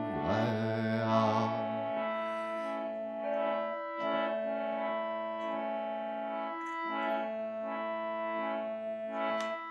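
Instrumental meditation music: sustained keyboard chords held and changing every second or two, with a brief swooping sweep near the start.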